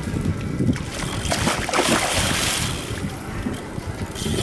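Wind buffeting the microphone, with a rush of splashing water about halfway through as a hooked Mekong catfish swirls at the surface.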